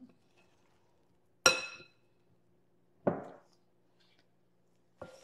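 A metal spoon knocking against the side of a glass mixing bowl twice, about a second and a half apart, while tossing floured okra; the first knock rings briefly, the second is duller.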